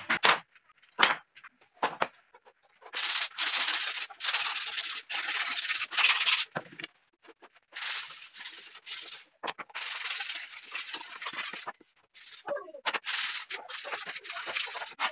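Sandpaper rubbed by hand along a thin wooden strip: long rasping strokes with short pauses between them. A few sharp wooden knocks come in the first two seconds.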